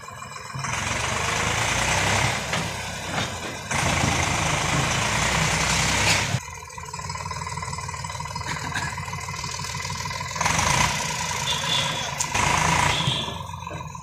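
Eicher 548 tractor's three-cylinder diesel engine running under load as it pulls forward with the tipper trailer raised, unloading soil. The engine note rises and falls several times, with a thin steady whine for a few seconds past the middle.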